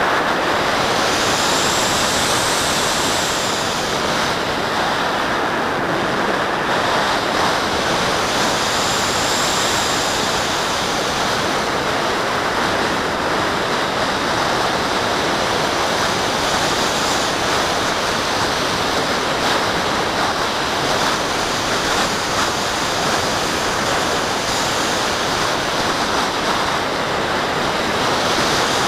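Steady rush of air over a camera mounted on the wing of a Graupner Cherry II electric glider in flight, with its motor off, gliding.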